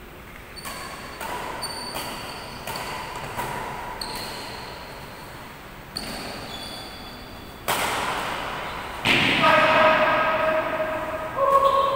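Badminton rally: rackets hitting a shuttlecock at irregular intervals, each stroke a sharp pock with a short ringing ping from the strings, echoing in a large hall. A harder smash comes about two-thirds through, followed by loud sustained calls from the players near the end.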